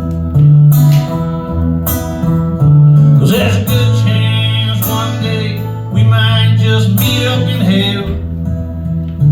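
Acoustic guitar strumming chords over a bass line whose notes change about once a second: an instrumental passage of a country song, with no singing.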